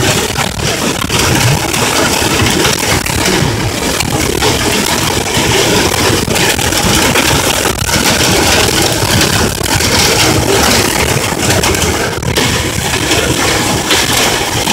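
Heavy hail and rain pounding on a car's roof and windshield, heard from inside the moving car: a loud, dense, steady clatter.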